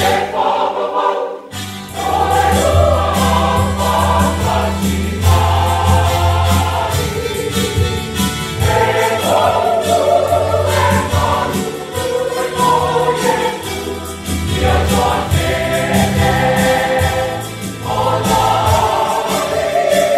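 Mixed church choir singing a Samoan hymn with electronic keyboard accompaniment; the keyboard's sustained bass notes come in about a second and a half in and carry on under the voices.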